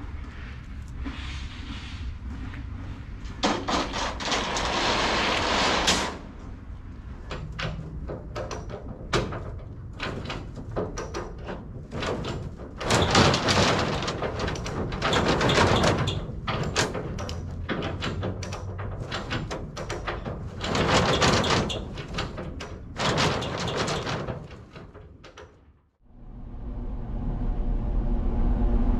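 Irregular knocking and clattering with bursts of scraping noise. A little before the end it drops away sharply and gives way to a steady low vehicle rumble that grows louder.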